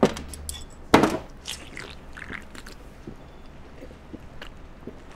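Aluminium cola can handled and drunk from: a sharp click, then a louder crack about a second in, followed by quiet gulping sounds.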